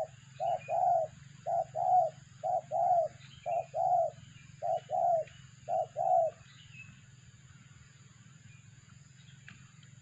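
Spotted dove (tekukur) cooing: six two-note coos, a short note followed by a longer one, about one a second, stopping a little past halfway.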